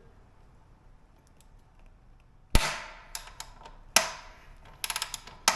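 Wrenches on a motorcycle's front axle nut as it is broken loose: after a quiet start, a loud sharp metal crack about halfway through, a second one a second and a half later, a quick run of small clicks, then a last sharp clank.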